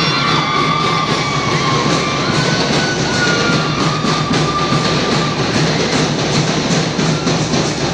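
A drum and lyre corps playing: marching drums keep a steady fast beat while bell lyres ring out sustained melody notes above them.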